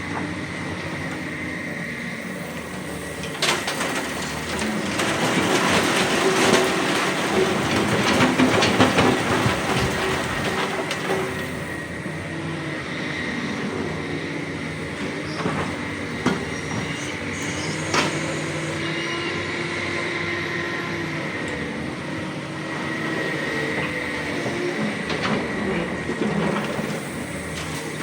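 Tracked hydraulic excavators digging rock: diesel engines running under load with a steady high whine, and the steel bucket and tracks clanking and scraping. The clatter is loudest for several seconds about a third of the way in.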